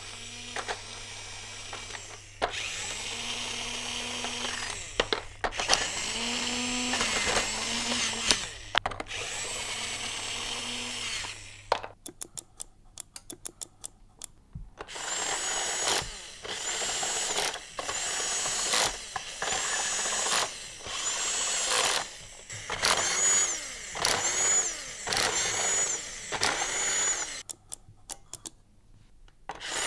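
A toy battery electric screwdriver's small motor whirs in three runs of a few seconds each as it drives plastic screws into a toy board, at its normal voltage. After a short pause comes a string of brief whirs, each about a second long, rising and falling in pitch.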